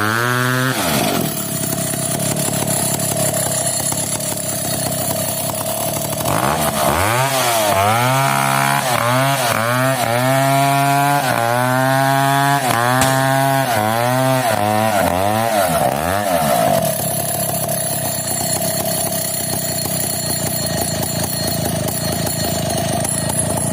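Stihl 070 two-stroke chainsaw running. It holds a steady note at first, then is revved up and down about once a second for some ten seconds, then settles back to a steady run.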